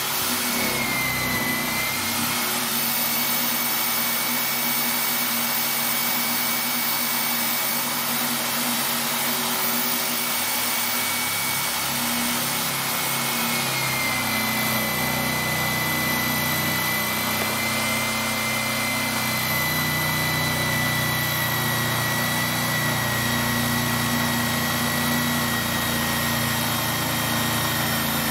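Bosch GSB 21-2 RE drill in a drill stand running steadily while a 20 mm Forstner bit bores through multiplex plywood. Its whine dips slightly in pitch about a second in and again around halfway through.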